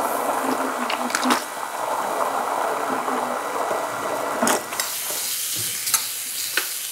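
Stick blender running in a glass bowl of tomato sugo, churning the liquid; the noise drops away about four and a half seconds in.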